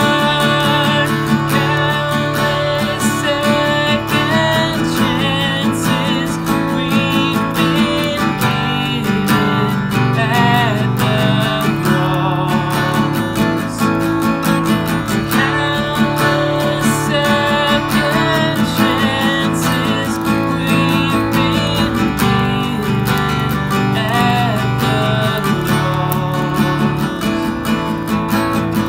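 Acoustic guitar strummed steadily, with a man singing a slow song over it.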